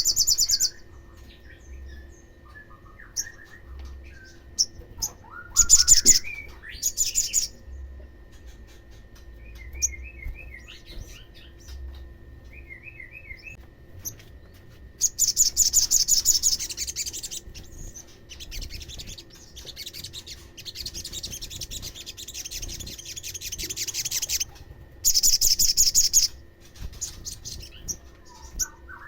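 Olive-backed sunbirds singing: several loud bursts of rapid, high, buzzy trills, about a second or two each, with softer chirping notes between them.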